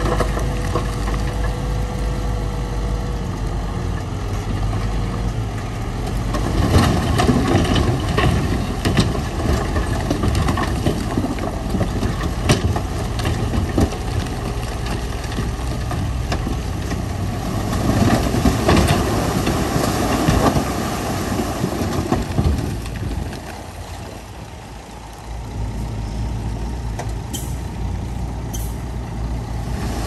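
Heavy diesel earthmoving machinery running, with the engine sound swelling and easing and scattered clanks and knocks of stone and steel. The sound drops briefly a little past two-thirds of the way through.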